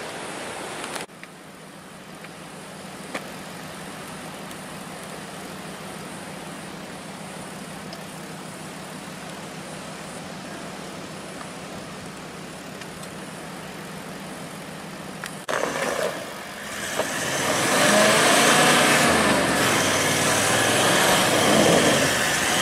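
Toyota LandCruiser 79 Series turbo-diesel V8 idling steadily while bogged in soft sand, then revving hard from about fifteen seconds in as the driver tries to pull out on recovery boards, with the tyres spinning in the sand.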